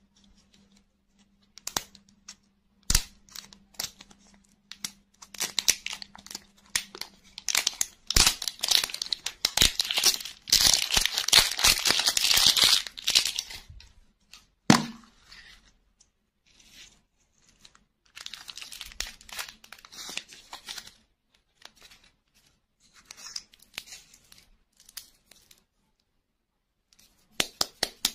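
Crinkly plastic wrapper being torn and pulled off a ball-shaped toy lollipop by hand, in many crackles and rips, loudest in a long tearing stretch about ten to thirteen seconds in. A single sharp knock follows, then quieter rustling and clicking as the hard plastic ball inside is handled.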